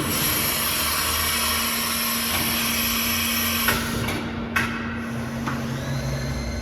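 Wagner CNC machining centre running: a steady motor hum under a dense hiss that stops partway through, two sharp knocks, and a higher whine that rises and holds near the end.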